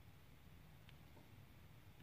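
Near silence: low room hum with two faint ticks about a second in, diamond-painting drills tapped onto the canvas with a drill pen.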